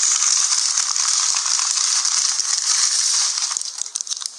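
A loud burst of crackling, hissing noise that starts abruptly and thins out near the end.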